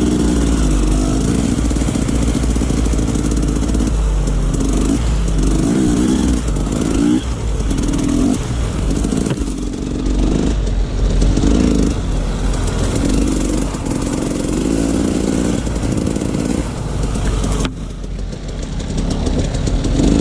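Off-road dirt bike engine being ridden, the revs rising and falling over and over, roughly once a second through the middle, over a steady low rumble.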